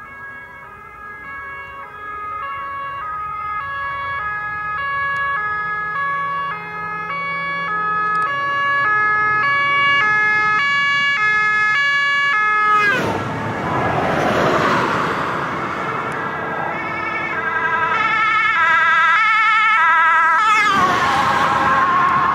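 Two-tone siren of an emergency vehicle speeding past with blue lights, its two notes alternating about twice a second. It grows louder as the vehicle approaches, with a rush of engine and tyre noise as a vehicle passes about 13 seconds in and again near the end, where the siren's pitch drops.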